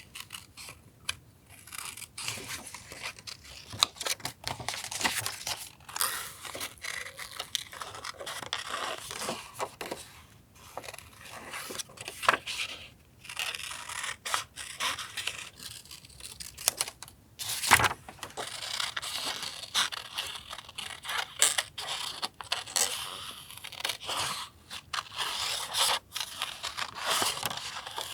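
Paper being handled for a journal collage: irregular rustling, tearing and scraping of paper, with short taps and one sharper click about two-thirds of the way through.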